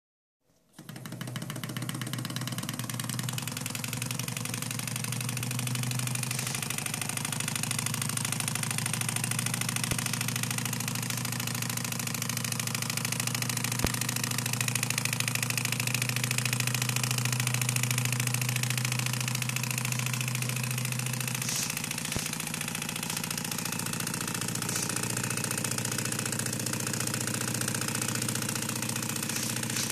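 Small homemade alpha Stirling engine with glass-syringe pistons running steadily, its flywheel, crank and pistons giving a fast, even mechanical rattle.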